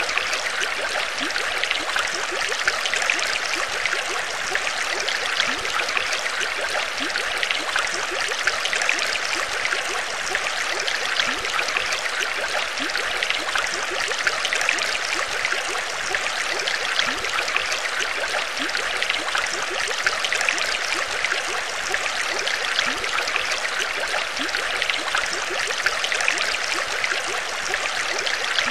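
Saltwater aquarium's water circulation running: a steady trickling, bubbling rush of water with a dense crackle of small bubbles.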